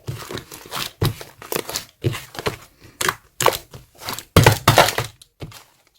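White, thick, sticky slime being squeezed and pressed by hand: repeated squishes with crackling pops and low thuds, about one or two a second, the loudest a little past the middle.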